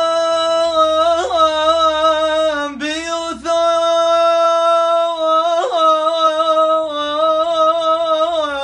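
A monk singing a slow, unaccompanied solo chant, holding long notes with wavering ornaments and pausing briefly for breath about three seconds in.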